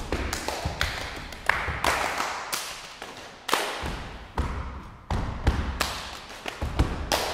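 Body percussion by a quartet: foot stomps on a wooden stage floor mixed with hand claps and slaps on the body, in a syncopated rhythmic pattern, each hit echoing slightly.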